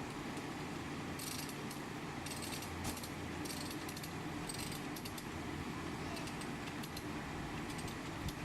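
Light metallic jingling and clinking in short bursts, mostly in the first half, over a steady low hum like an idling engine.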